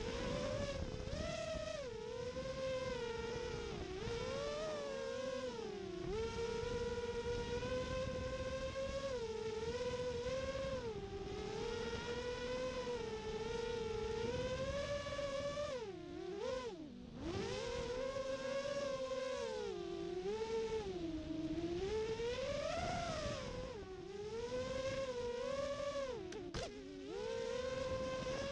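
FPV racing quadcopter's brushless motors spinning DAL Cyclone 5050C five-inch props in flight, a whine whose pitch rises and falls constantly with the throttle over a low rumble. The whine briefly drops away about 17 seconds in, and there are a couple of sharp clicks near the end.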